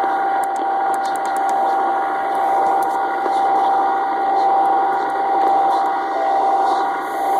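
A radio receiver giving out a strange steady whistling tone over a hiss of static, its loudness swelling and fading slowly every second or two.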